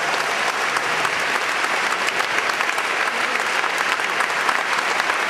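A church audience applauding: dense, steady clapping from a large crowd, carrying in a large church nave.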